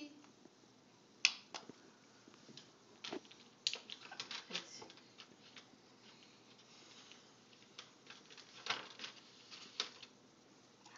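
Scattered light taps and rustles of paper sheets being handled and slid across a table, with one sharper click about a second in.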